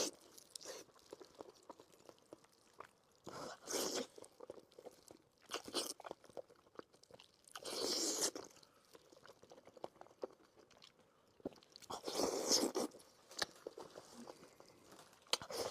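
Close-miked chewing of soft braised pork belly in spicy sauce: a run of small mouth clicks, with a louder burst every two to four seconds.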